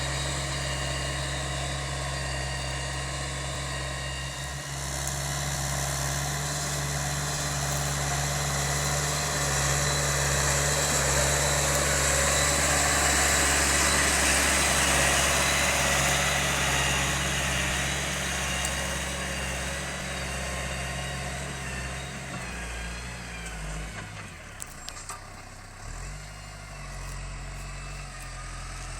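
John Deere 6210 tractor's diesel engine running steadily under load while ploughing. Near the end its note drops and wavers for a few seconds, then steadies again.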